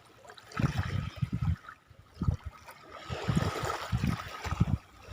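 Water sloshing and gurgling in uneven surges at the water's edge.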